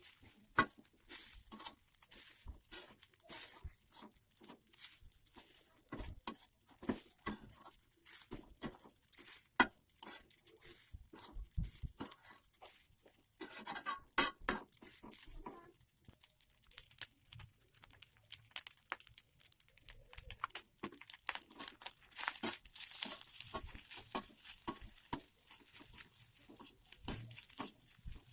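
Irregular clicks, taps and knocks of kitchen utensils during fried-rice preparation, over a steady faint hiss.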